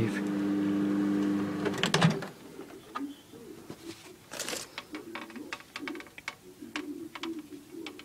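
Microwave oven running with a steady hum, which stops about two seconds in with a few sharp clicks as it is switched off and its door opened. Quieter clicks and knocks follow.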